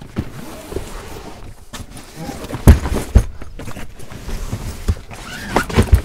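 Luggage and items being handled in a car's cargo area with the rear seats folded: scattered rustling and knocking, and two heavy thuds about half a second apart near the middle.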